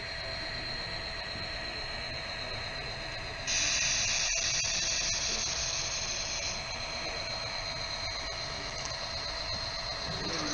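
Sound-equipped H0 model diesel locomotive running on a layout: a steady electronic hum with thin high tones, then an abrupt loud hiss about three and a half seconds in that eases after about three seconds but keeps going.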